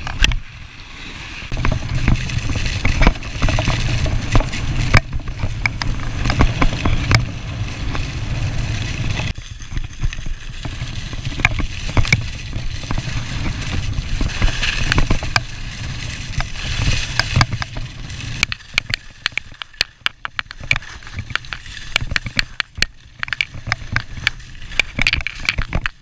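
Skis running fast over hard-packed snow: a steady scraping hiss under a low rumble of wind on the microphone, with many sharp clicks and clatters from the skis. It eases and turns choppier about two-thirds through.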